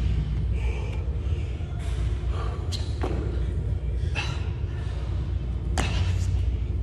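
Burpee reps on a gym floor: two sharp thuds about three seconds apart as the body lands, over a steady low rumble of the room.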